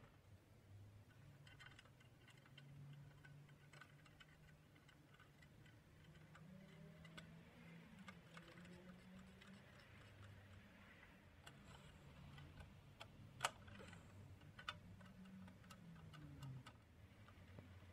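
Faint, irregular clicks and light knocks of a scale's mechanism and housing parts being handled and fitted together, with one sharper click about two-thirds of the way through. A faint low drone sits underneath.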